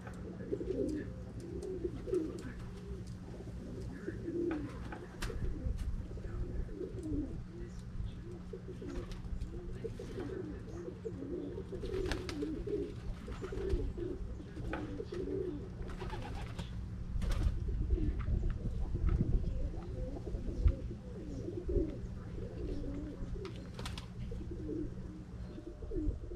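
Pigeons cooing over and over, several calls overlapping, over a steady low hum that stops near the end and a few sharp clicks.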